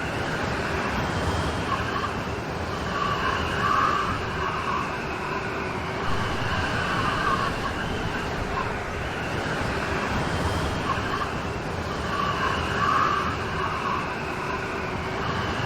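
Steady heavy rain, a dense even hiss with gentle swells in loudness every few seconds.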